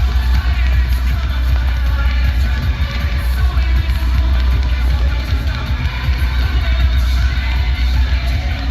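Loud recorded music with a heavy bass line playing over a sound system.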